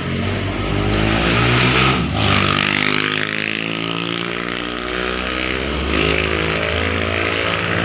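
Hino truck's diesel engine running as the truck drives past, a steady drone with the rush of road noise.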